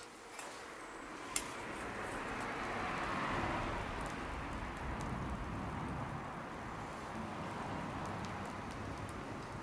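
Bonfire burning: a steady hiss with scattered sharp crackles, one sharper pop a little over a second in.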